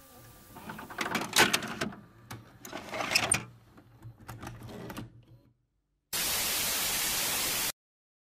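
VCR tape-eject sound effect: a run of mechanical clicks and clunks with some whirring over about five seconds. About six seconds in, a burst of TV static hiss lasts about a second and a half and cuts off abruptly.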